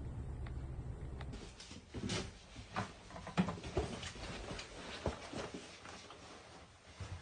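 A steady low hum, then a series of scattered light knocks and clicks, the loudest about three and a half seconds in.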